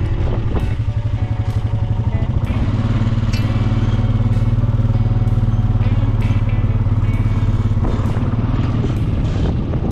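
Quad bike (ATV) engine running as it is ridden, a steady low drone that evens out and grows a little louder from about two and a half seconds in until about eight seconds in.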